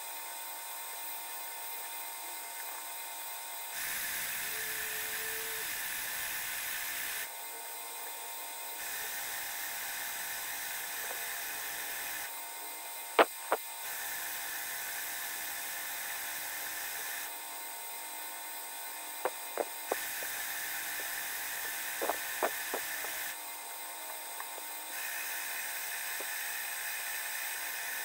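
Metal lathe turning a bar for a model engine cylinder head, with a steady motor and spindle whine. Every few seconds a harsher cutting noise comes in for a few seconds as the tool takes a pass, then stops. A few sharp ticks come in the middle.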